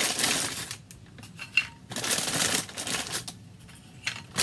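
Plastic packet of water crackers crinkling as it is handled and opened, in several bursts with quieter gaps between, and a brief sharp click about one and a half seconds in.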